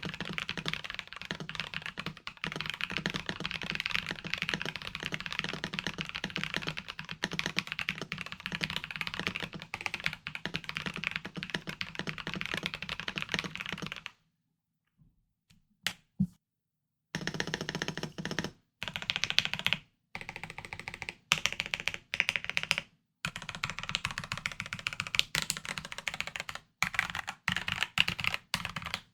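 FL MK870 mechanical keyboard with lubed, filmed Penguin tactile switches and a foam-stuffed case being typed on: fast continuous typing, a pause of about three seconds around the middle, then typing in short bursts with brief gaps.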